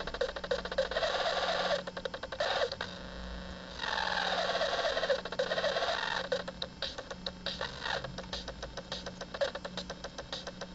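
Circuit-bent toy drum machine putting out glitchy electronic noise: rapid clicking under bursts of harsh buzzing that start and stop abruptly. A short quieter gap comes about three seconds in, then a warbling, falling buzz. The second half thins to sparser crackling clicks over a low hum.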